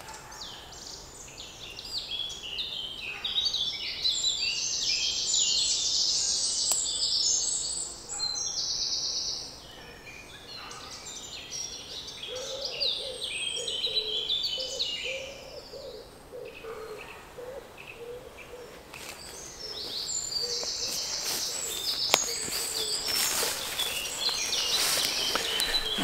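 Great spotted woodpecker nestlings calling from the nest: loud, high-pitched chattering of rapid repeated notes in two long spells, from chicks close to fledging. Between the spells a lower, wavering call sounds in the background.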